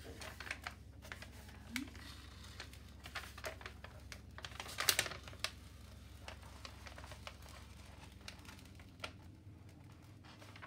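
Paper cover sheet being peeled back off the adhesive surface of a diamond painting canvas: soft paper rustling and crackling with scattered small clicks, loudest in a short crackly burst about five seconds in.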